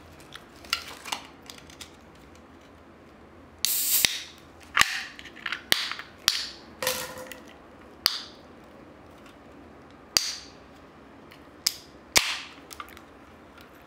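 Long fingernails clicking and prying at the ring pull of an aluminium drink can as it is opened: a dozen or so sharp, separate clicks and taps, with a short burst of noise a little before four seconds in.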